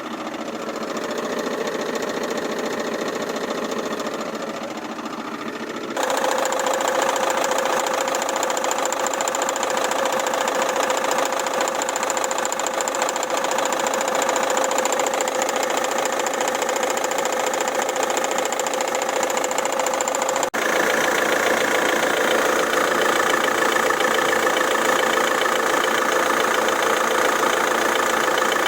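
Car engine running with a knock from a failing crankshaft harmonic balancer (damper pulley). The sound gets abruptly louder and brighter about six seconds in, and changes again after a brief dropout about twenty seconds in.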